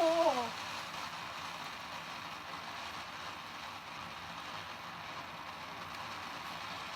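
Steady hiss of a ground fountain firework spraying sparks, with no pops or bangs.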